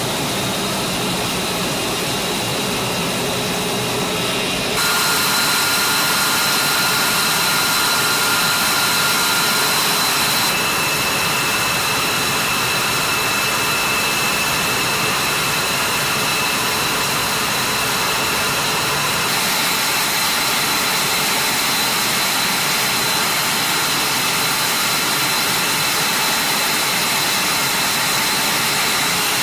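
Fighter jet engines running at ground idle: a steady loud hiss with high whining tones. The whine shifts abruptly a few times.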